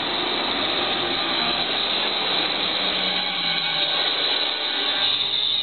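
A steady, loud rushing noise from the exhibit show's sound effects played over speakers, with no clear tune or voice.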